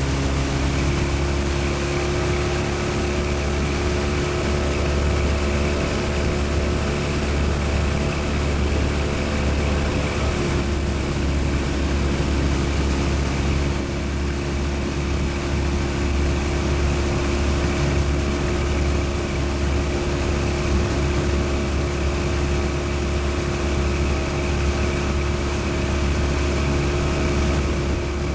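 Motorboat engine running steadily under way, a constant drone with a strong low hum and several held pitches.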